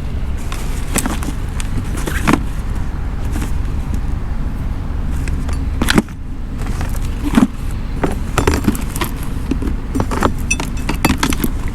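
Camping tent gear being handled while the tent is set up: scattered sharp clicks, clinks and rattles over a steady low rumble.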